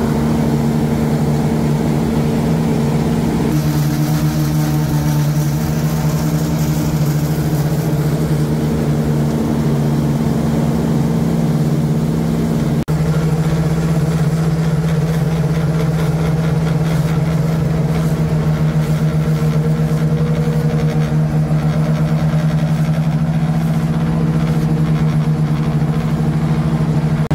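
Diesel engine of a Wirtgen SP-15 slipform kerb paver running steadily under working load, a constant low hum.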